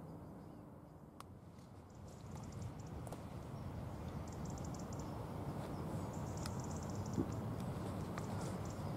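Steady low outdoor rumble with short, rapid, high-pitched twittering of small birds several times.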